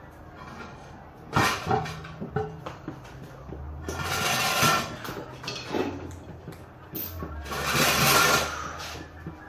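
Heavy metal parts being moved on a cart: a sharp clank about a second in, then two longer stretches of scraping and rattling, each a second or so, over a low hum.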